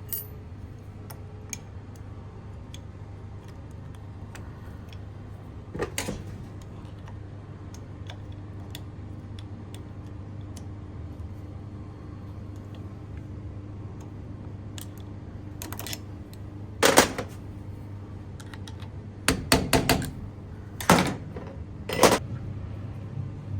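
Hand tools working on a car AC compressor clutch assembly: scattered light metallic clicks, one knock about a quarter of the way in, and a run of louder sharp knocks in the last third, over a steady low hum.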